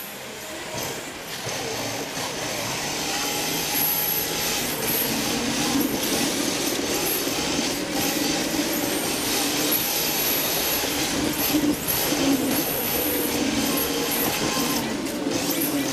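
Onboard sound of a rear-wheel-drive RC drift car running: its electric motor and gears whine and its hard tyres slide across the smooth floor, getting louder over the first few seconds.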